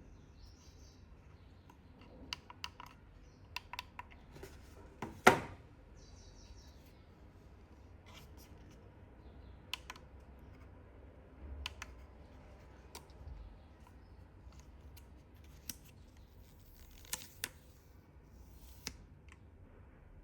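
Packaging and its contents being handled: scattered clicks and taps with short rustles, and one louder knock about five seconds in.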